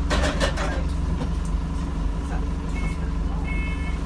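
Alexander Dennis Enviro200 bus engine running steadily, heard from inside the passenger saloon, with a brief clatter at the start and short high beeps about once a second from about three seconds in.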